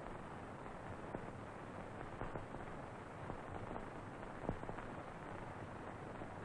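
Background noise of an old film soundtrack: a steady hiss and low hum, with a few faint clicks and pops scattered through it.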